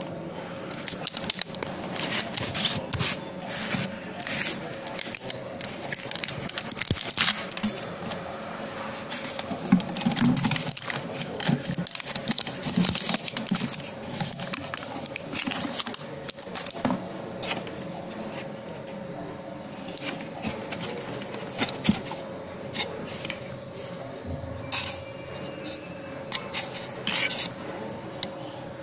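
Irregular scrapes, rubs and clicks of a plastic protein powder tub being opened by hand, with the lid and its seal handled and the plastic scoop scraped in the powder.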